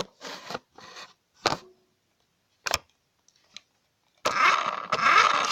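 A few short knocks and handling noises, then about four seconds in the small electric motor and plastic gears of a remote-controlled toy car start whirring loudly and steadily, with a constant whine.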